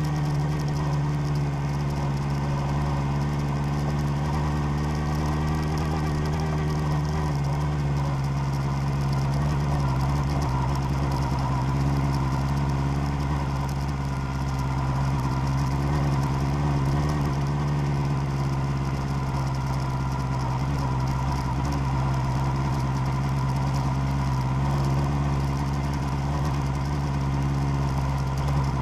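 Vehicle engine running at steady revs, its pitch wavering only slightly, on an off-road track.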